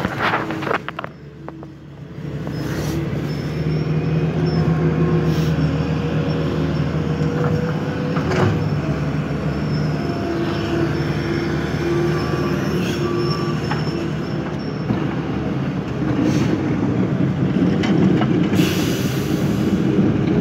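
Heavy road-milling and paving machinery running steadily, with occasional sharp clanks and a stretch of hiss near the end. The sound dips and is muffled for a moment about a second in.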